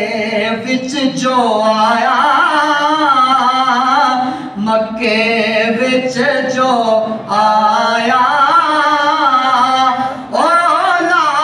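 A man singing a devotional naat unaccompanied, in long, wavering, drawn-out phrases with short breaks for breath between them.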